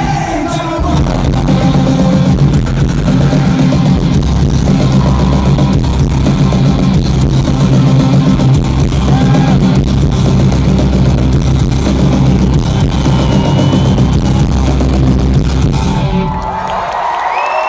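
Live rock band with electric guitars, bass and drums playing loudly, heard from within the audience. The music stops about 16 seconds in and the crowd cheers and whistles.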